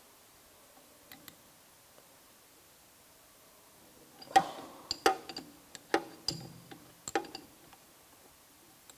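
Small steel wrenches clicking and clinking against the drawbar on a drill-milling machine's spindle head as it is loosened: a few faint ticks, then a run of sharp metal clicks about four seconds in.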